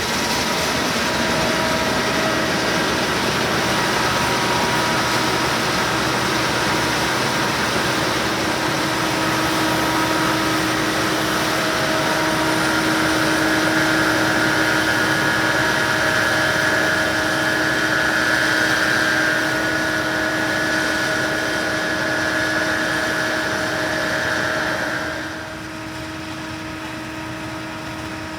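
Case IH 2388 combine running steadily: a continuous engine and machinery drone with several steady whining tones. About 25 seconds in, the sound drops noticeably and the high hiss fades, leaving the lower drone and whine.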